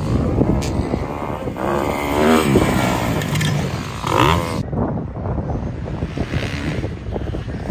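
Motocross dirt bike engines revving hard and easing off, their pitch rising and falling with the throttle. The two strongest surges come about two seconds in and again about four seconds in.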